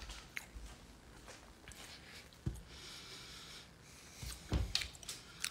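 Handling noise from a handheld phone: scattered soft knocks and clicks with a brief rustle, heard against faint room hiss.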